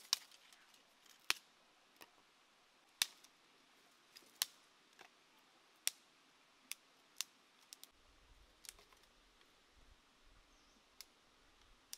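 About fifteen sharp clicks or snaps at irregular intervals, the loudest in the first five seconds, over a quiet background. A faint low rumble comes in after about eight seconds.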